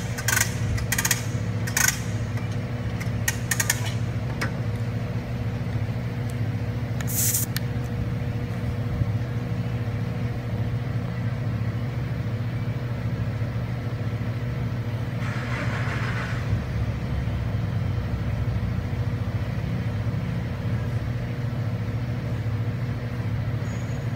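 A steady low motor hum runs throughout. In the first few seconds come several sharp metallic clicks as the nitrogen charging hose is fitted to the accumulator's gas valve, and about fifteen seconds in there is a brief hiss.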